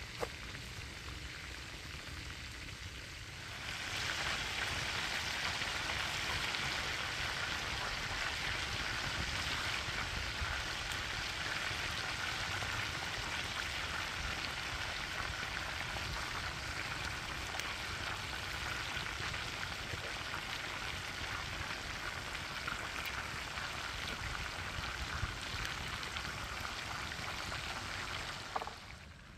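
Smoked homemade sausage frying in a pan of fat over a campfire, sizzling steadily. The sizzle jumps louder about four seconds in, holds, and falls away just before the end; a single light knock comes right at the start.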